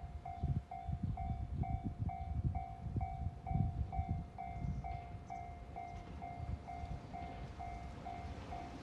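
Japanese level-crossing alarm ringing, a repeating electronic 'kan-kan' tone about twice a second, the warning that a train is approaching. Irregular low gusts of wind rumble on the microphone underneath.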